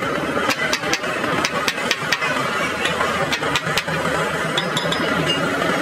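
A steady engine drone with a run of sharp taps over it, several in the first two seconds and three more, close together, a little past the middle.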